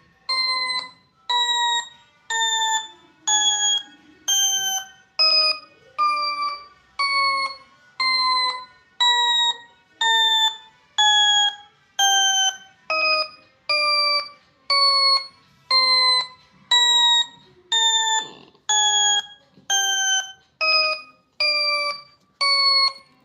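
A long series of alarm-like beeping notes, a little under one a second. Each note slides slightly down in pitch, and the pitch steps up and down from note to note like a simple tune.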